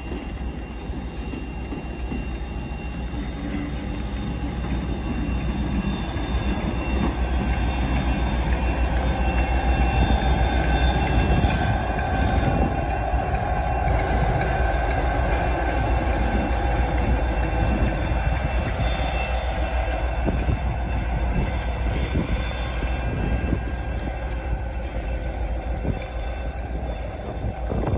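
Class 57 diesel-electric locomotive passing, its EMD two-stroke diesel engine running with a steady whine over it. It grows louder over the first ten seconds as it comes alongside, then eases a little as it moves away.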